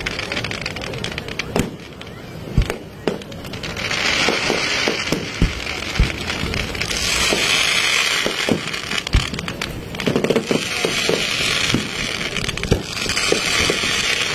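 A fireworks display: aerial shells and rockets going off in a rapid string of sharp bangs, several every few seconds. Stretches of hissing crackle come between them.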